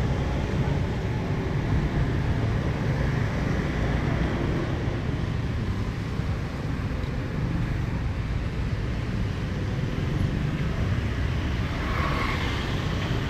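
City street traffic: a steady low rumble of passing vehicles, with a brief louder, higher sound about twelve seconds in.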